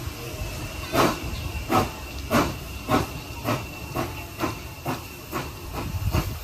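Austerity 0-6-0 saddle tank steam locomotive pulling away, its exhaust beats coming about two a second, quickening slightly and fading as it moves off, over a steady hiss of steam.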